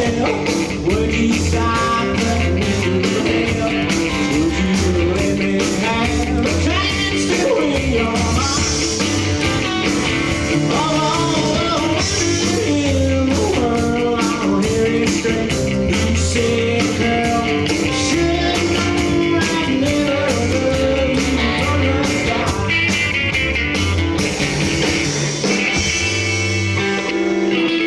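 Rockabilly band playing live with guitar, drums and singing, with a steady driving beat.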